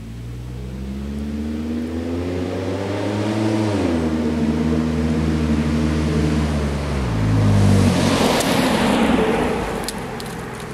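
2007 Pontiac G6 GT's 3.5-litre V6 through a GT-R aftermarket exhaust, accelerating toward and past the microphone. The engine note climbs, drops suddenly twice as it shifts up, then peaks in a loud rush of noise as the car goes by and fades away.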